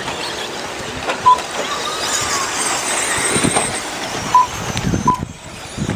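1/10-scale RC stadium trucks running on a dirt track, with a high whine that wavers up and down through the middle. Three short, loud beeps cut through, the first just over a second in and two more near the end.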